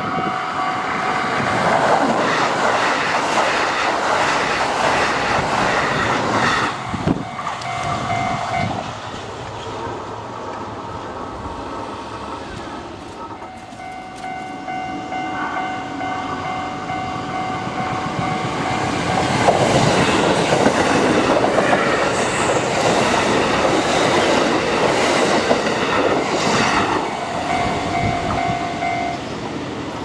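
Two Kintetsu electric trains pass the level crossing one after the other, their wheels clattering over the rail joints. The first is loudest in the first seven seconds and the second from about 19 to 27 seconds in. Between and around them a steady warning tone from the crossing's signal sounds on and off.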